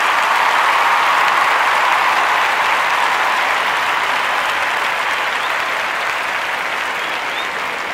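Audience applauding: a dense, even clapping that peaks about a second in and then slowly fades.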